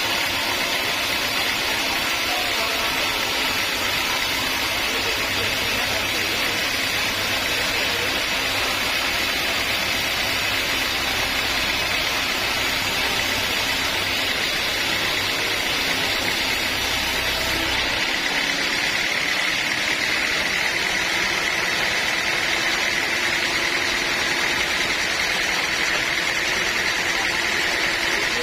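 Bandsaw sawmill running with a steady high whine over a continuous mechanical drone; a deep rumble drops away about two-thirds of the way through.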